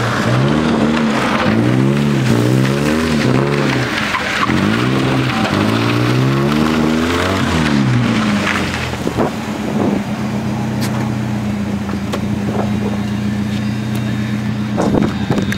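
Stock 1990 Mazda Miata's 1.6-litre four-cylinder engine revving up and down over and over as the car is thrown into slides. For about the last seven seconds it holds a steady note.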